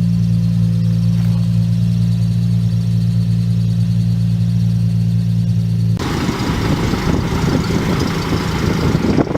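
Nissan 350Z's 3.5-litre V6 engine running: a steady idle hum for about six seconds, then a sudden switch to a rougher, noisier engine sound.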